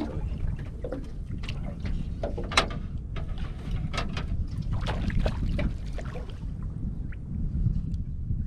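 Wind buffeting the microphone over water lapping at a small boat's hull, a steady low rumble, with scattered light clicks and knocks. One sharper click comes about two and a half seconds in.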